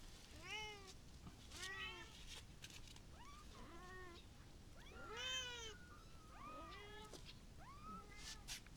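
Several kittens mewing in short, repeated calls that rise and fall in pitch, some overlapping one another.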